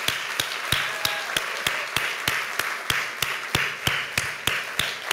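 Audience applauding, with one person's hand claps close to the microphone standing out sharply over it, about three claps a second.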